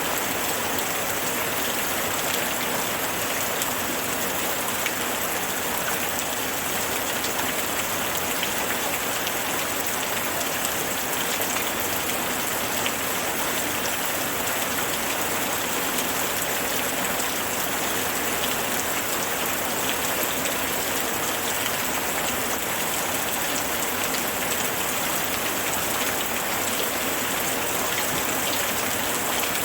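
Steady rain falling and pattering on surfaces, an even hiss with many small drop ticks.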